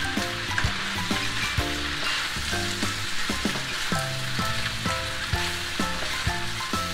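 Leafy greens and noodles sizzling in a hot frying pan as they are tossed with a wooden spatula. Underneath runs background music, a melody of short notes over a bass line.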